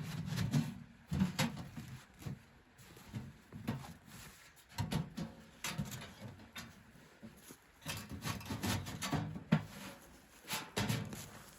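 Irregular knocks, scrapes and rubbing of things being handled, coming in short clusters with brief pauses between.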